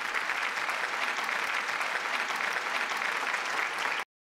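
Applause, a crowd clapping steadily, cutting off abruptly near the end.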